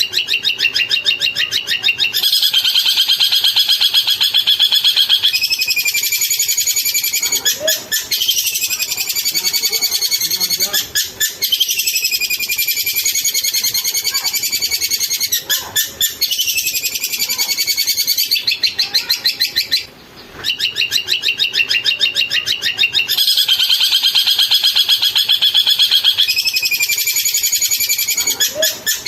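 Long-tailed shrike (cendet) singing a fast, continuous chattering song of rapid high notes and warbles, with a short break about two-thirds of the way through.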